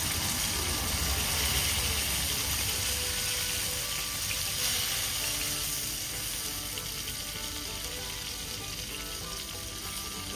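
Pieces of fish frying in oil in a skillet: a steady sizzle while they are turned over.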